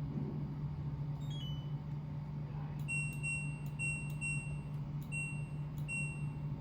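Washing machine control panel beeping: a quick falling run of short tones, then about seven short high beeps at uneven intervals as its buttons are pressed to set up the wash.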